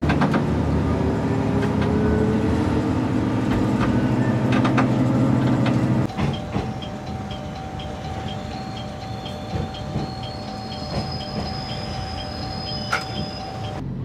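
Train running, heard as a low steady hum with a slowly rising whine for about six seconds. It then cuts abruptly to a quieter passage with a steady tone and faint, evenly spaced ticks.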